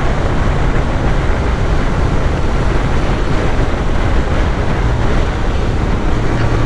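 Motorcycle engine running at a steady cruise, with heavy wind rush over the microphone. A low, steady engine tone grows stronger near the end.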